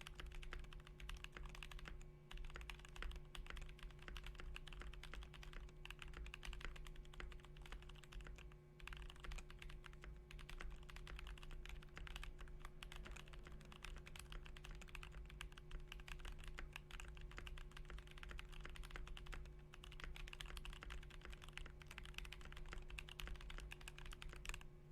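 Continuous fast typing on a GMMK Pro mechanical keyboard with lubed AEBoards Naevy linear switches, an aluminium plate with the foam removed, and ABS keycaps: a dense run of key clacks that stops right at the end. A faint steady hum sits underneath.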